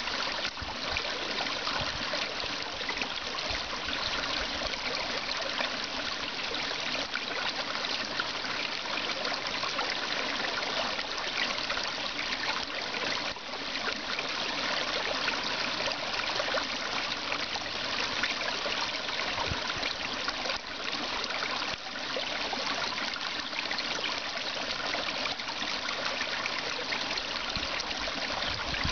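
Small grassy stream running and trickling steadily, an unbroken hiss of flowing water.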